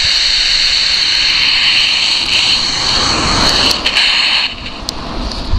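Loud, steady radio static hiss from an FM CB radio receiving a weak, distant transmission, cutting off suddenly about four and a half seconds in. The signal is barely above the noise: 'pretty lousy' reception at about a mile and a half.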